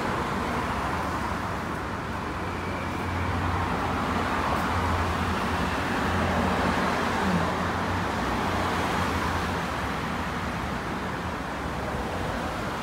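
Steady city road traffic: cars passing along the street with a low engine hum, swelling slightly in the middle.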